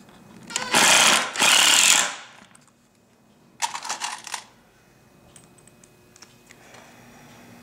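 Cordless impact driver hammering a long screw into a timber frame, in two loud bursts within the first two seconds. A shorter, quieter burst of noise follows about three and a half seconds in.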